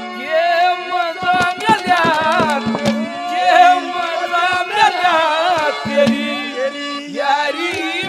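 A man singing a Haryanvi ragni into a microphone, his voice bending and ornamenting the notes, with a hand drum accompanying.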